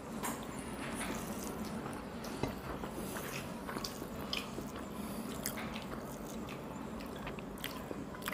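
Eating by hand: soft squishing of rice and curry being mixed with fingers on a plate, and chewing, with scattered small clicks.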